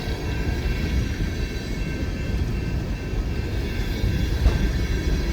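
Empty coal train's hopper cars rolling past: a steady low rumble with faint, steady high tones above it and one sharp clank about four and a half seconds in.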